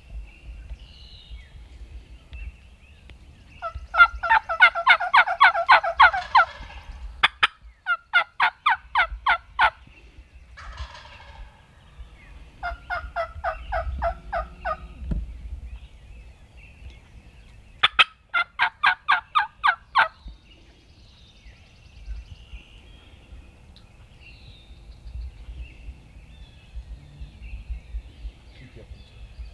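Wild turkeys calling: four loud runs of rapid, evenly spaced notes, each about two seconds long, the first denser as if several birds call at once.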